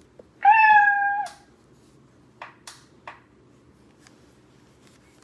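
Domestic cat meowing on a DVD soundtrack, played through a CRT television's speaker: one long meow at a level pitch about half a second in, followed by three faint clicks a couple of seconds later.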